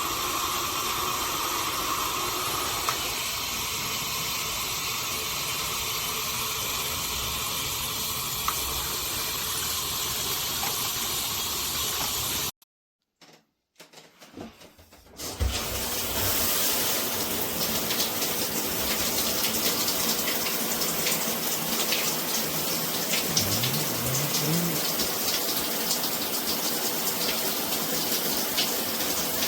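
Water spraying steadily from a shower head. The spray drops out for about two seconds midway, then comes back slightly louder and hissier.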